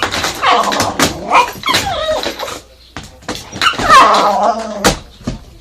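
Kishu dog giving a string of drawn-out barks and whines, about five in a row with short gaps, typical of a dog barking at a vacuum cleaner.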